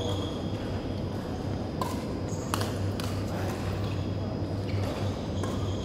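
Badminton rackets striking a shuttlecock during a doubles rally: a few sharp hits, most of them close together around the middle, over a steady low hum.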